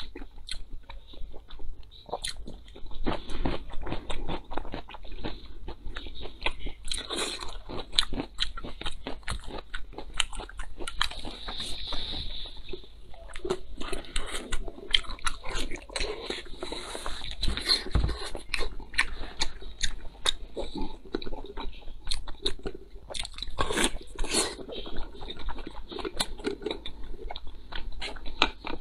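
A person chewing and biting braised pork belly with lettuce, close-miked: a steady run of quick mouth clicks and smacks.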